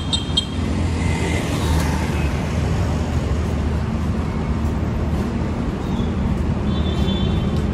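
Busy city road traffic: a steady, loud rumble of vehicle engines and tyres passing on the street.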